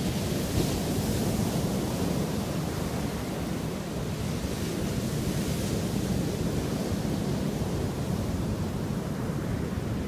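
Ocean surf breaking and washing up a sandy beach: a steady rushing noise that swells slightly about a second in and again around the middle.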